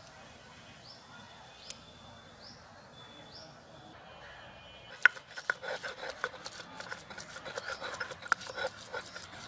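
A stone roller (batta) crushing and grinding peeled garlic cloves on a flat grinding stone (sil). About halfway through, a sharp crack starts a run of crunching clicks and rasping strokes of stone on stone.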